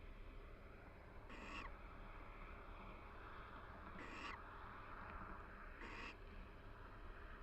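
Barn owl pair giving soft, short calls to each other, three calls about two seconds apart.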